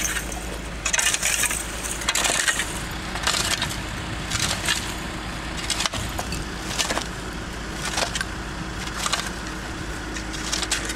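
Footsteps crunching on gritty, ash-strewn ground, about one step a second, over a steady low hum.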